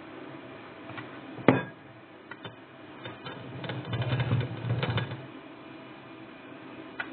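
Wire whisk working thick chocolate cake batter in a mixing bowl. A single sharp knock comes about a second and a half in, then a rapid cluster of clicking and tapping against the bowl from about three and a half to five seconds in.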